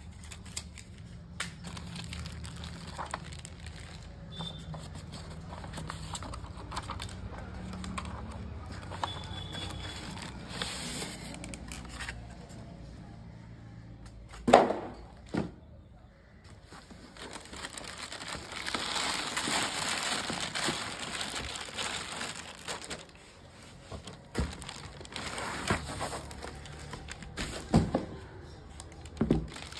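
Packaging being handled: plastic bags and wrap and paper inserts crinkling and rustling as they come out of a cardboard TV box. A few sharp knocks are mixed in, the loudest about halfway through.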